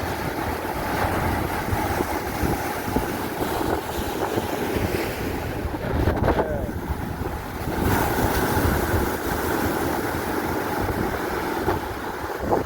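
Strong wind buffeting the microphone aboard a small fishing boat under way in rough seas, with a steady rush of wind and water throughout.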